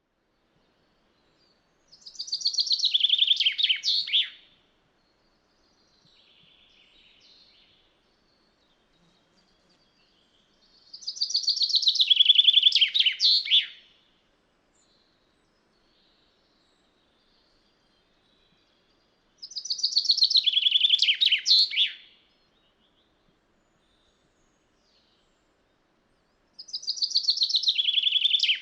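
Common chaffinch singing: a rapid trill of notes falling in pitch and ending in a short flourish, about two and a half seconds long, repeated four times roughly every eight seconds.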